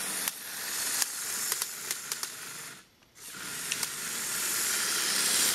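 Lego Technic tracked tank driving on carpet: a hissing whir from its Power Functions XL drive motor and gearing, with sharp clicks from the plastic tracks. It cuts out briefly about halfway through, then comes back and grows louder.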